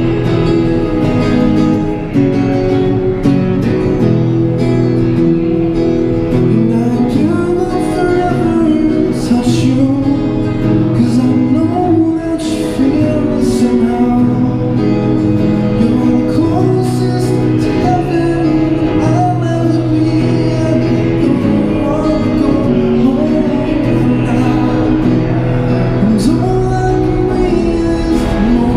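A man singing a song to his own strummed Yamaha acoustic guitar, amplified through a street amp, with the voice carrying a melody over steady chords.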